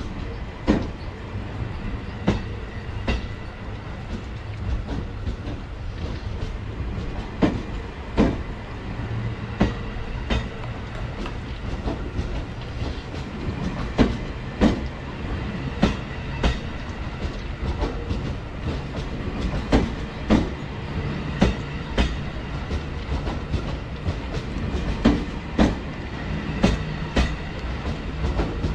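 H100 diesel railcars being hauled slowly past in a freight delivery, their wheels clacking over rail joints in pairs every couple of seconds, over a steady low rumble of rolling stock.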